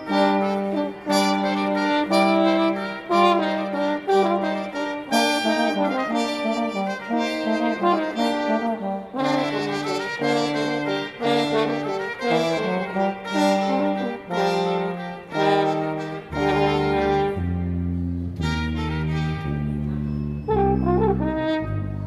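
Instrumental prelude music: several melodic lines of held notes moving together, with a low bass line coming in about three-quarters of the way through.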